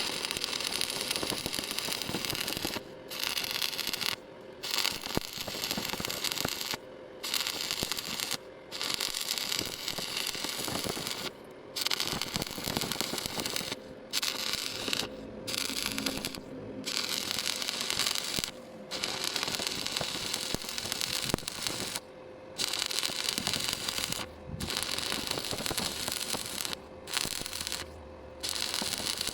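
Electric welding arc crackling in runs of one to three seconds, each broken off by a brief pause as the welder stops and restarts the bead.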